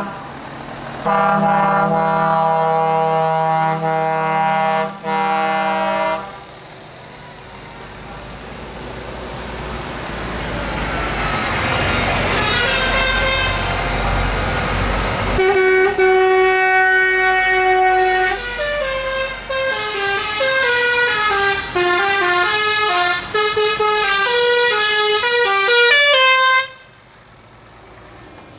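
Heavy trucks passing close by, blowing air horns. A multi-note chord horn sounds for about five seconds with two short breaks. Then a truck's engine grows louder as it goes by, and from about halfway through a horn plays a stepping melody that stops abruptly near the end.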